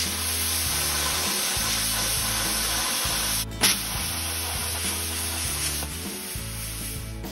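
Handheld air plasma cutter cutting sheet steel: a steady hiss from the arc and air jet. It breaks off briefly about three and a half seconds in and comes back with a sharp crack, then runs on a little weaker near the end.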